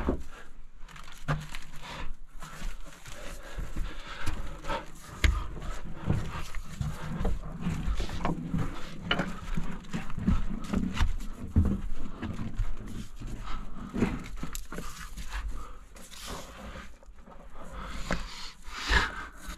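A person breathing hard and panting while clambering through a narrow rock tunnel, with repeated scrapes and knocks of hands, boots and gear against stone and loose gravel.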